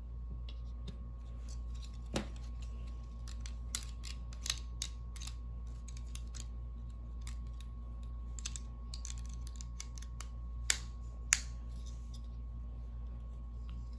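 Plastic Snap Circuits parts clicking and rattling as they are handled and fitted onto the plastic base grid: scattered light clicks, with two sharper snaps well past halfway. A steady low hum runs under them.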